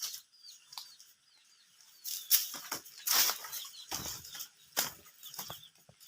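A run of short rustling bursts, about five of them, each reaching from deep thumps up to a high hiss, with a few faint small-bird chirps in the first second and again near the end.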